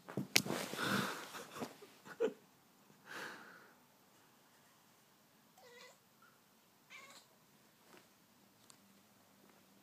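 Domestic cat meowing in short calls: a loud one near the start, then fainter ones spread over the following seconds.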